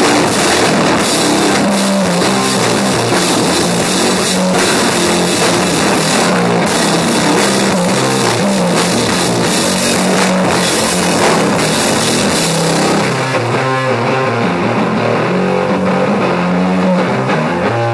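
Live stoner doom band playing loud: distorted electric guitar riff over drums with crashing cymbals. About thirteen seconds in the drums and cymbals drop out and the guitar carries on alone.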